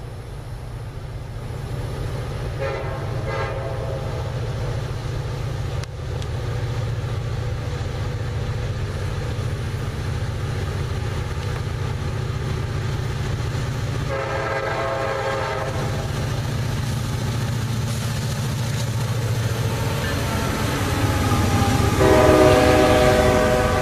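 CSX diesel freight locomotives approaching with a steady low engine rumble, sounding a several-note air horn three times: a short blast about three seconds in, a longer one around fourteen seconds, and a long one near the end as the lead locomotive comes alongside, the loudest moment.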